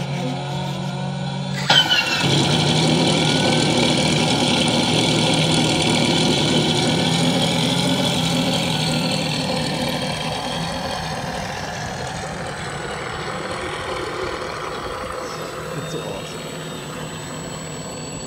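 Gas engine of a large radio-control Focke-Wulf Fw 190 scale model running. It gets louder after a click about two seconds in, then runs steadily and grows slowly fainter as the plane taxis away.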